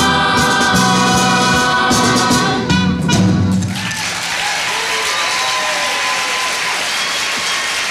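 A cast of singers with accompaniment finishes a show tune, ending on closing hits a little over three seconds in. Audience applause follows.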